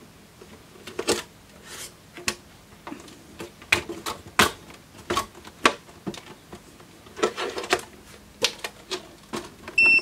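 Plastic end bumpers being pushed and snapped by hand onto a bench power supply's case: a string of irregular clicks and knocks, with a short high squeak near the end.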